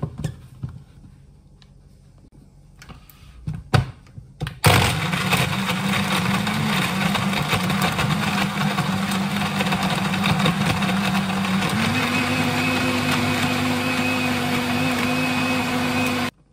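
A personal bullet-style blender blends a shake with ice. After a few clicks, the motor starts suddenly about four and a half seconds in and runs steadily for about eleven seconds. Its hum steps up a little in pitch partway through, and it stops abruptly near the end.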